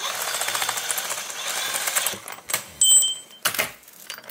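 A steel jaw puller being backed off the removed supercharger pulley: about two seconds of rapid, even mechanical clicking, then a few sharp metal clinks, the loudest one ringing briefly.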